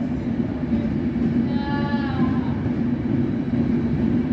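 Trenitalia Intercity passenger train passing through the station, its wheels on the rails making a steady rumble. About one and a half seconds in, a brief pitched tone rises over the rumble and sags in pitch as it fades.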